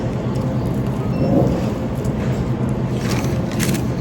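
Steady low hum of an idling car engine, with a brief rustle about three and a half seconds in.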